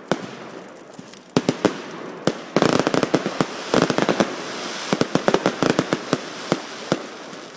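Fireworks display: sharp bangs of shells bursting, with two stretches of dense rapid crackling from crackling-star effects, about two and a half and four seconds in.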